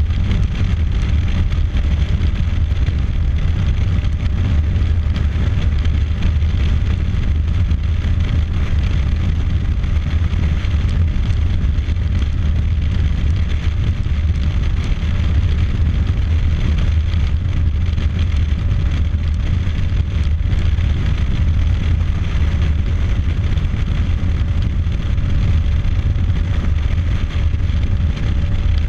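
Steady wind rush on the microphone over the drone of a motorcycle cruising at highway speed, with no gear changes or breaks.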